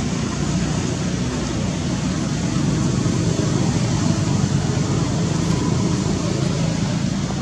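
A steady low rumble with an even hiss over it, unchanging throughout, and no clear animal calls.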